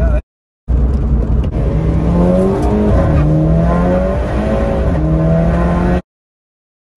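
Mk5 Golf GTI's turbocharged 2.0T four-cylinder, fitted with a Golf R camshaft and upgraded high-pressure fuel pump, pulling under acceleration as heard inside the cabin. It is a deep rumble with an engine note that climbs and then drops back at the shifts. The sound cuts out completely twice, briefly near the start and for about a second near the end.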